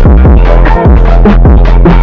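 Loud electronic music with heavy, booming bass-drum hits that drop in pitch, about two or three a second, over sustained synth tones.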